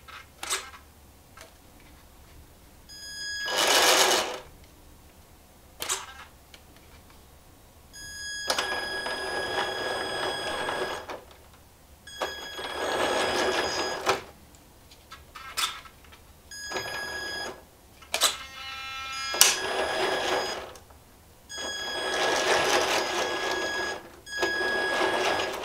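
Amewi M983 HEMTT 8x8 RC truck worked from its handheld transmitter in repeated bursts of one to three seconds, each a whirring with a steady high whine, with a few short clicks between.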